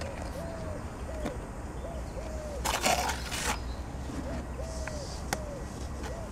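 A dove cooing in repeated soft three-note phrases, short-long-short. About three seconds in, a brief rustling noise is the loudest sound.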